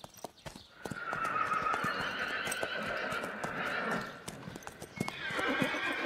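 Lipizzaner horses whinnying in long calls, one running from about a second in to about four seconds and another starting near the end, with hooves clicking on the ground. These are separation calls as the foals are weaned from their mothers.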